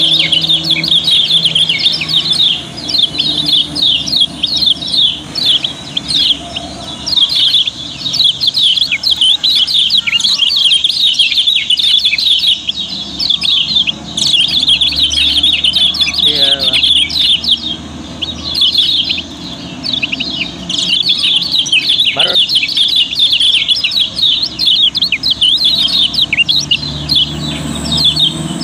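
Several caged kecial kuning, small white-eyes, chirping together in a continuous, busy chorus of short, rapid, high-pitched notes.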